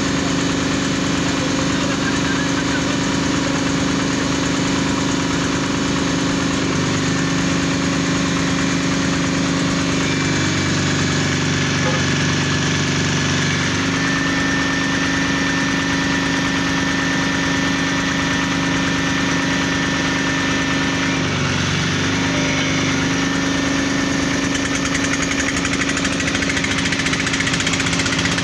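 Engine-driven water-well drilling rig running steadily through borehole drilling. Its note changes about seven seconds in, a thin high whine follows from about halfway, and the note shifts again near the twenty-one-second mark.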